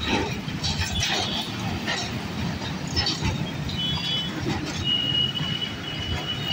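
Road traffic crossing a level crossing: motorcycle and jeep engines running, with scattered knocks as wheels go over the rails. A thin, high, steady tone starts about five seconds in and holds to the end.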